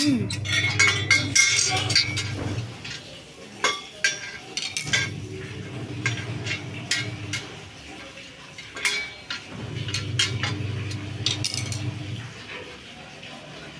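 Steel parts of a satellite dish mount clinking and knocking as the bracket is handled and its bolts worked with a metal screwdriver, in scattered sharp clicks. A low steady hum comes and goes in stretches of a couple of seconds behind them.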